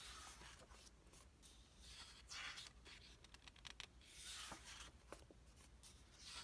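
Faint rustling and swishing of large paper pages being turned by hand in an art book, several turns about two seconds apart.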